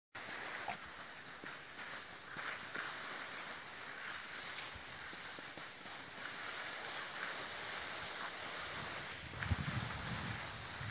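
Skis sliding over snow, a steady scraping hiss. From about nine and a half seconds in, wind buffets the microphone in low rumbling gusts.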